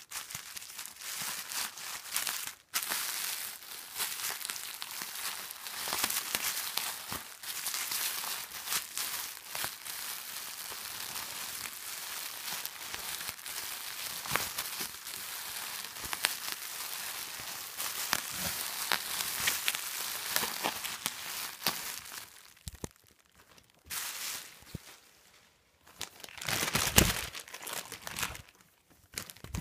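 Crinkly clear plastic being crumpled and scrunched by hand: a dense, crackling rustle with a few short pauses near the end.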